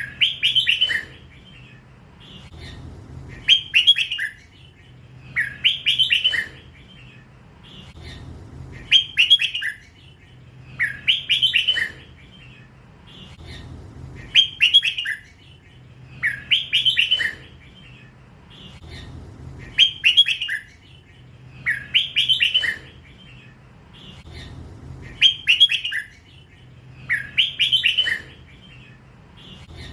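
Young hybrid red-whiskered bulbul singing in the drawn-out 'lak wai' style prized in Thai bulbul song contests. Its bright chirping phrases each last about a second and come back about every two and a half to three seconds.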